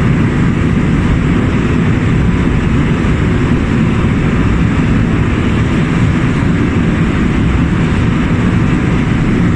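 Steady drone of a motor boat under way, a low engine rumble mixed with the rush of churned water from its wake.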